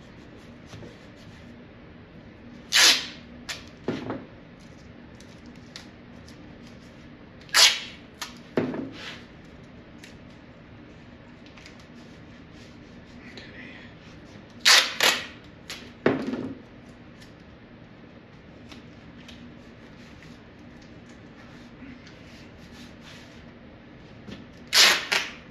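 Masking tape pulled off the roll in short, sharp rips, four times several seconds apart, each followed by a softer second sound as the strip is torn off and pressed down.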